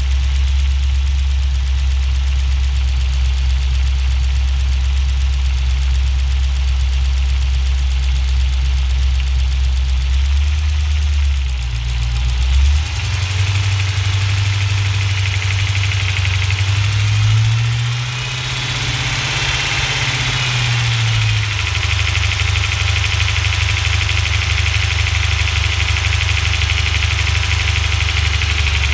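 Cold 6.1 L Hemi V8 idling steadily, then revved up twice about ten seconds in and brought back down to a steady speed around 1400 rpm. At that speed a knock or tick is heard, which the owner says is gone at idle, at higher revs and once the engine is warm, and suspects is a cold Hemi tick.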